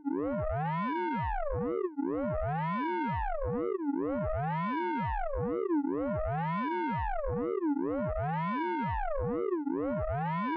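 Synthesized radar pulse-train sound effect from the Orange Vocoder plugin: a looping electronic tone with stacked overtones whose pitch arches up and down in a cycle of about two seconds.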